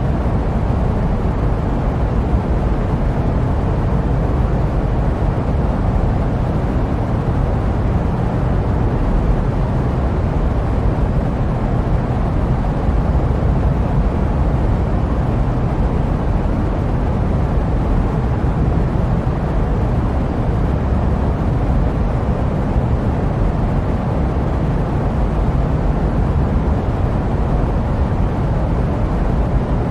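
Steady jet aircraft noise used as white noise: an even, unbroken deep noise with most of its weight in the low range and little treble.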